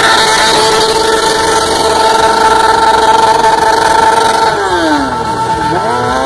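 A sport motorcycle's engine is held at high revs during a smoky burnout. About four and a half seconds in, the revs fall away sharply for about a second, then climb again near the end.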